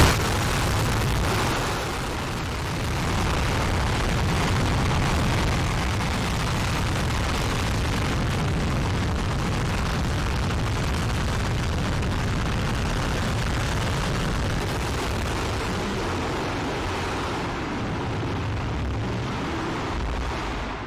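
Space Shuttle main engine (RS-25) firing on a test stand: a loud, steady roar of rocket exhaust with a deep rumble underneath, dying away right at the end.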